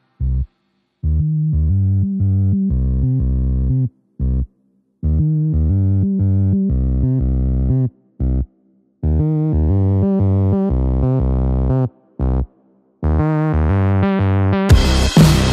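Electronic background music: synthesizer phrases over deep bass notes, broken by several sudden silent gaps, turning fuller and louder with sharp beats near the end.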